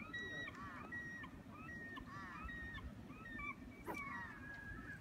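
Many birds calling in short, overlapping, repeated calls, some arching in pitch and some held level. There is a sharp click about four seconds in.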